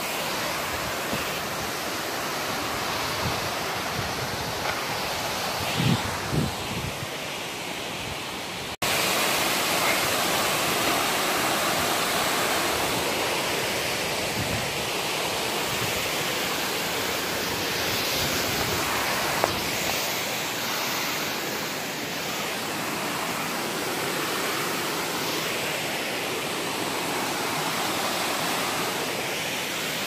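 Rushing water of a creek and small cascade: a steady, even hiss. A couple of low knocks come about six seconds in, and the sound breaks off for an instant about nine seconds in, then carries on a little louder.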